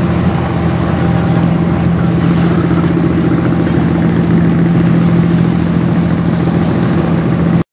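Passing general cargo ship's diesel engine droning steadily, a low hum over a hiss of water and wind. It cuts off suddenly near the end.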